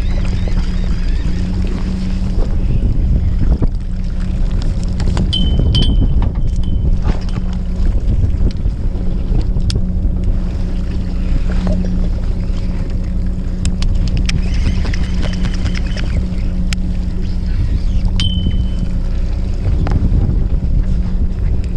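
A fishing boat's engine running with a steady low hum, mixed with wind buffeting the microphone. Scattered clicks and knocks of fishing gear being handled sound over it, with a couple of brief high squeaks.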